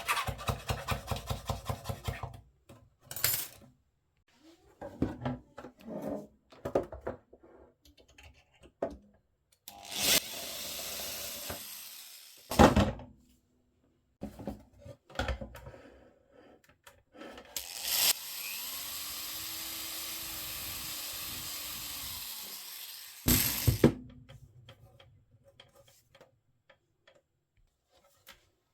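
Bench work with hand and power tools: a quick run of clicks, then scattered knocks and clacks. A small power tool runs twice, briefly and then for about six seconds, its motor spinning up and winding down, with a sharp knock after each run.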